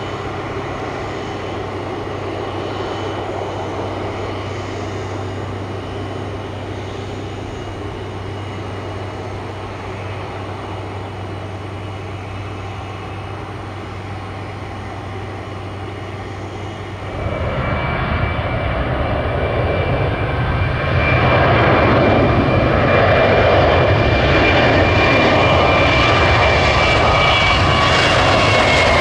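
Jet airliner engines: a steady rumble, then a sudden jump louder about seventeen seconds in, with a high engine whine that dips slightly in pitch near the end.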